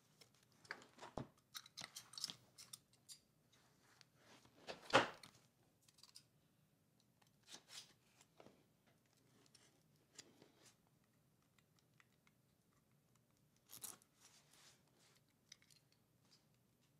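Faint, irregular crackling and scraping of a plastic-wrapped product box as it is handled and cut at with a small cutter, with scattered clicks; the loudest scrape comes about five seconds in.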